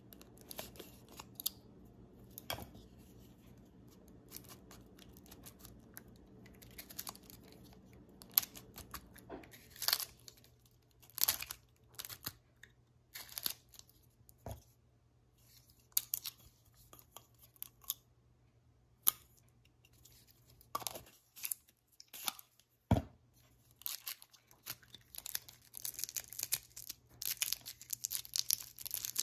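Hands opening a Triple Power Push Pop candy. Scattered clicks and crackles come from its plastic case and cellophane wrapper, and near the end there is dense, continuous crinkling as the cellophane is peeled off.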